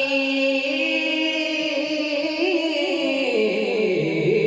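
Urdu devotional verse (manqabat) sung without words: a voice holds a long note with wavering ornaments, then slides lower about three seconds in.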